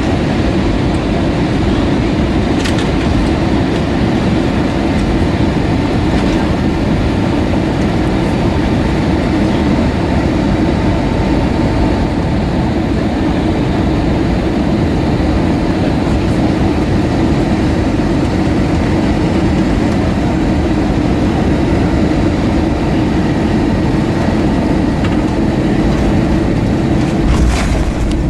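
Steady roar inside an Airbus A320-232 cabin on final approach, with the IAE V2500 turbofan engine and rushing airflow heard from a window seat beside the engine. A brief thump comes near the end, just above the runway.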